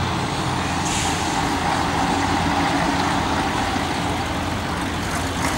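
Dennis fire engine's diesel engine running as the truck drives past, a steady engine rumble.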